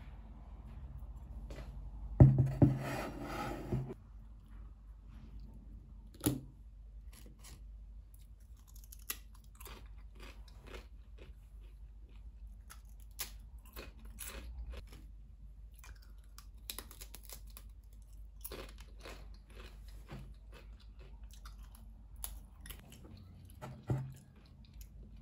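Tortilla chips crunching as they are eaten: a run of short, crisp crunches. Before them, about two seconds in, comes a louder rattling clatter, and single knocks come near the start and near the end.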